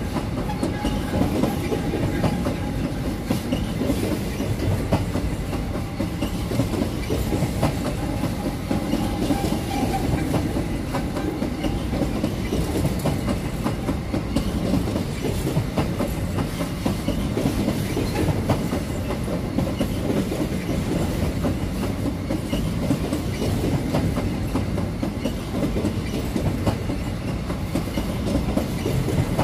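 Covered steel freight wagons rolling past close by: a steady rumble of steel wheels on rail with continual clickety-clack over the rail joints.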